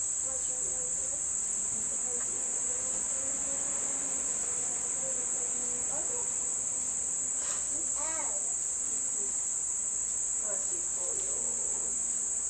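Insect chorus outdoors: a steady, unbroken high-pitched trill that does not change.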